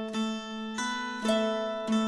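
Background music: a melody of plucked string notes, a new note about every half second.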